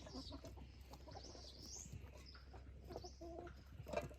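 Faint bird calls: high little chirps on and off, with a short lower call about three seconds in.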